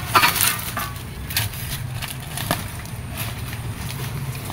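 Digging into earth with a hand tool: a few short scrapes and knocks of the tool working the soil, spaced irregularly.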